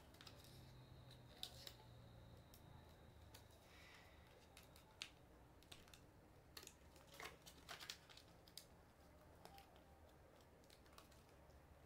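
Faint, scattered ticks and rustles of a small piece of paper being folded and creased by hand, over quiet room tone.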